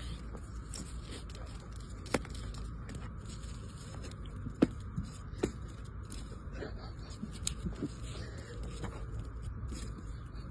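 Thin ice cracking under a French bulldog's steps as it walks across it: a scatter of sharp clicks and pings, the loudest about two seconds in and again near the middle, over a steady low rumble.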